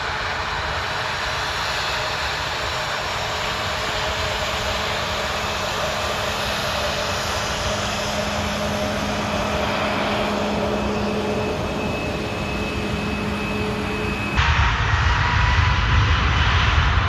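Jet airliner engines: a steady roar with several held whining tones. About 14 seconds in the sound changes abruptly to a louder, deeper rumble with a different whine.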